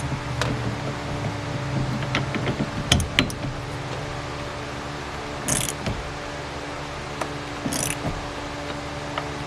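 Scattered metallic clicks and scrapes of a hand tool tightening a steering-wheel hub adapter onto the steering column, with two short hissing scrapes in the second half, over a steady low hum.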